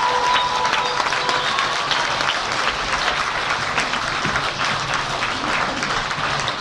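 Audience applauding, a dense steady clatter of many hands clapping. A held note of music dies away in the first second or so.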